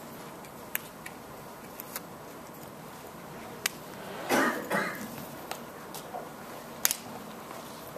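Quiet room tone in a hall with a seated audience, broken by scattered small clicks and knocks and, a little over four seconds in, a brief two-part vocal-range sound from the audience.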